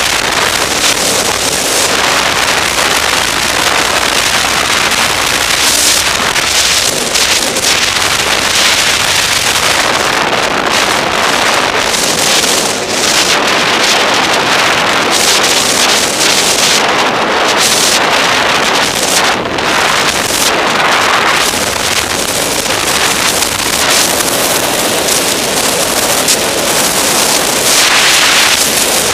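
Loud, steady wind rushing over the microphone of a helmet camera on a snowmobile moving at speed, with the snowmobile's engine running underneath.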